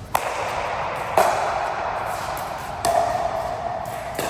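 Four sharp racket strikes in a rally, about one to one and a half seconds apart, each followed by a ringing tail.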